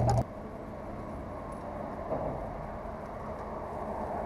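Steady hum of road traffic on the highway bridge overhead, after a brief loud low hum that cuts off suddenly just after the start.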